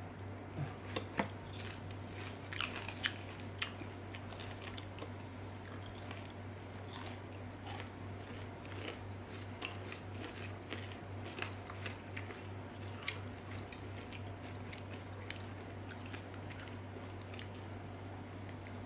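Close-up crunching and chewing of crispy fried banana-stem chips: sharp crunches come thick in the first few seconds, then thin out into softer chewing. A steady low hum runs underneath.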